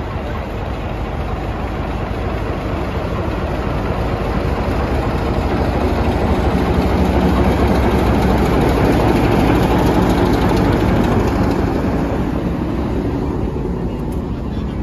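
Diesel locomotive X 20's engine idling, a steady low drone that grows louder towards the middle as it is passed close by, then eases off.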